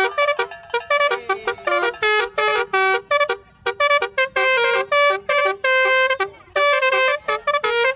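Basuri telolet bus horn, a multi-tone air horn, playing a quick melody of short, clipped notes, breaking off briefly twice.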